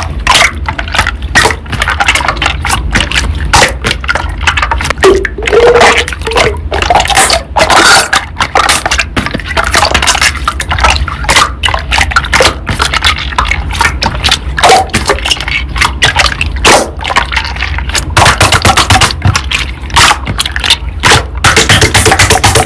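Slime being squished and worked by hand, making a dense, irregular run of wet clicks, pops and squelches.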